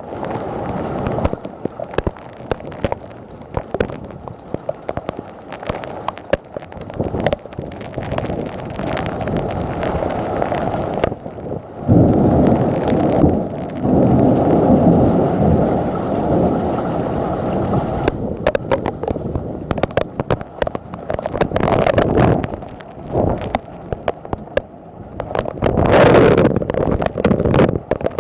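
Thunderstorm: a heavy downpour with constant crackling spatters, and a long, loud rumble of thunder that sets in suddenly about twelve seconds in. Further swells of rumble follow near the end.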